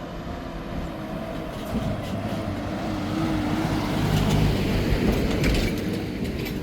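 A motor vehicle's engine and tyres rumbling as it approaches, growing louder to a peak about two-thirds of the way through, then easing slightly.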